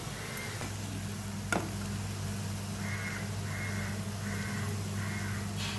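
Crow cawing repeatedly, once near the start and then four times in quick succession in the second half, over a steady low hum. A single sharp click about a second and a half in.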